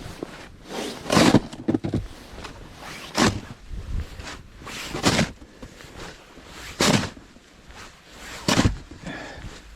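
Snow shovel scooping and scraping through snow in about five short strokes, roughly two seconds apart.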